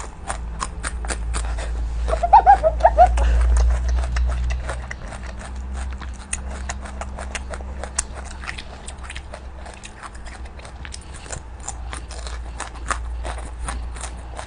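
Close-miked chewing of crunchy lotus shoots: a steady stream of small, rapid crunches and wet clicks from the mouth.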